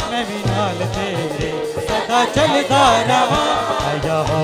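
Live Christian worship song: a man singing into a microphone over band accompaniment with a steady rhythm.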